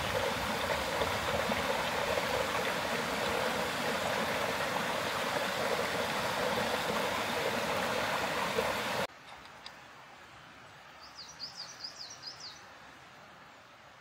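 Water rushing steadily over a rock ledge at a small waterfall, cutting off abruptly about nine seconds in. Then quiet woodland, with a small bird singing a short run of quick, high, falling notes.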